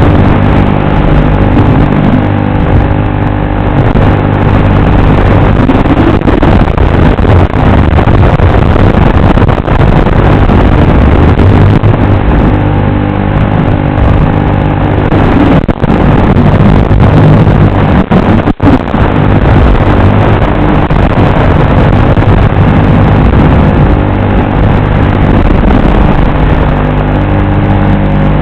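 FPV racing drone's brushless motors and propellers buzzing loudly and steadily, the pitch of the buzz shifting slightly with throttle, with a brief drop near the middle.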